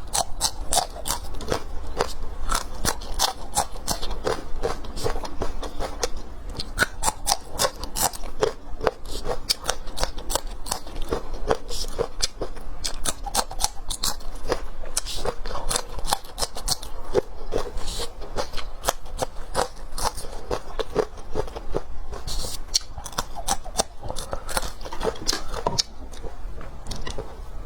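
Close-miked chewing and biting of food: a dense, unbroken run of wet clicks, smacks and crunches.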